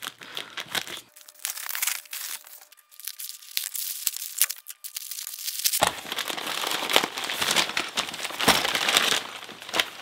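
A USPS Priority Mail envelope torn open by hand, and plastic-bagged items and small cardboard boxes pulled out of it, with crinkling and rustling of paper and plastic. There is a quieter stretch near the start, and the densest crinkling comes in the last few seconds.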